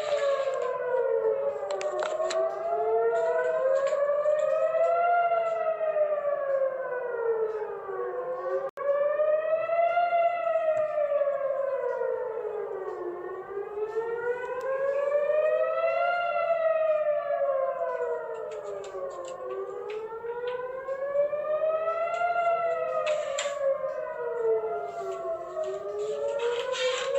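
Civil-defence air-raid sirens wailing, several at once and out of step, each rising and falling slowly in pitch over a few seconds: the rocket-attack warning. The sound cuts out for an instant about nine seconds in.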